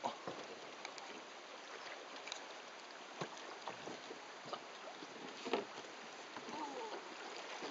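Steady rush of river water around a raft of canoes held side by side, with scattered knocks of paddles and hulls against one another, the loudest about three and five and a half seconds in.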